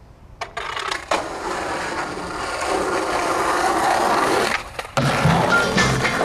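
Skateboard wheels rolling on asphalt, with two sharp clicks of the board in the first second or so. There is a brief drop about two-thirds of the way through, then a low beat and short pitched notes come in under the rolling near the end.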